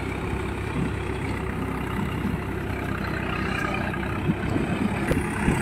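Swaraj tractor's diesel engine running steadily under load as it drives a rear-mounted Tata rotavator through a flooded paddy field. A few faint clicks come near the end.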